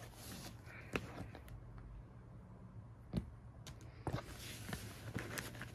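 Hands rummaging through small items in a leather handbag's pocket: faint rustling with a few light clicks and knocks, the sharpest about a second in and about three seconds in, then a run of small ticks near the end.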